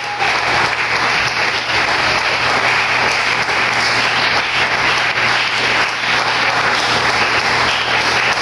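Congregation applauding steadily, an even patter of many hands clapping.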